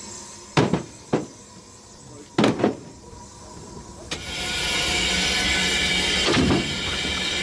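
Firewood logs knocking against the steel of a 1935 Orenstein & Koppel 0-4-0 steam locomotive's cab as the fire is stoked, with a few sharp clunks in pairs. About four seconds in, a steady hiss from the locomotive sets in and holds.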